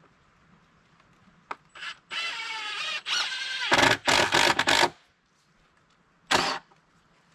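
Cordless power driver driving screws through a board into a wooden pallet. It starts with a steady motor whine about two seconds in, turns louder and rougher as the screw bites and seats, then gives one more short burst near the end.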